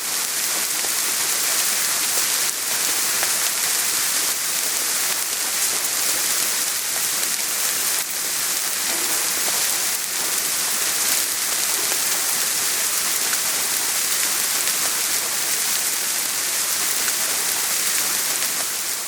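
Soft rain falling steadily: an even hiss made of many fine drops.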